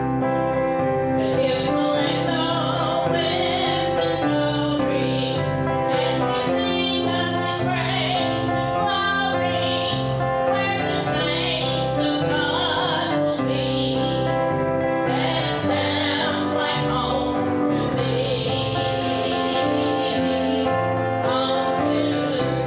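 A song sung by male and female voices over steady instrumental accompaniment.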